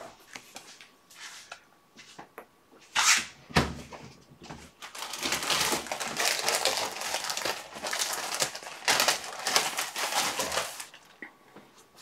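A knock about three and a half seconds in, then a long stretch of crackly rustling as packets and plastic bags of fly-tying feathers are rummaged through, dying down near the end.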